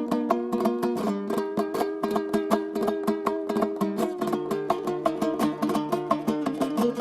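A plucked string instrument played in fast, even strokes, its chord changing about a second in and again about four seconds in: the instrumental opening of a Kazakh folk song.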